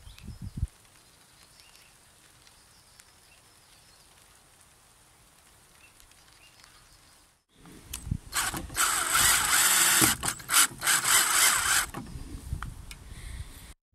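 Cordless drill driving a screw into a wooden railing, running in several short bursts with brief pauses, starting about eight seconds in and lasting about four seconds.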